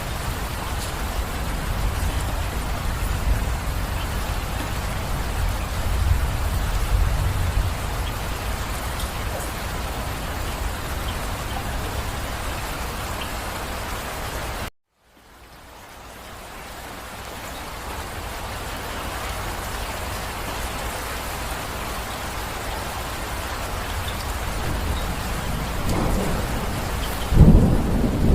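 Steady rain with a low rumble of thunder. About halfway through, the sound cuts out abruptly for a moment, then the rain fades back in. A loud thunderclap breaks near the end.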